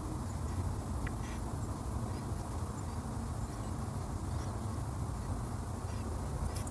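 Steady low background hum with a faint hiss: room tone, with a couple of faint ticks about a second in.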